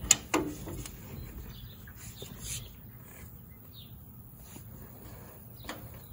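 Breaker bar and socket clinking onto the lower shock bolt: two sharp metallic clicks right at the start, a quarter second apart, then a few faint taps as the bar is settled in place.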